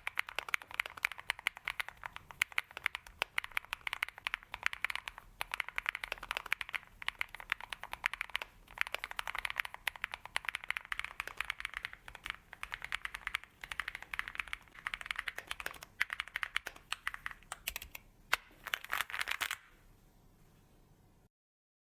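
Fast typing on a KeysMe Mars 03 gasket-mounted mechanical keyboard: a dense, uneven run of key clicks with short pauses between bursts, stopping abruptly near the end.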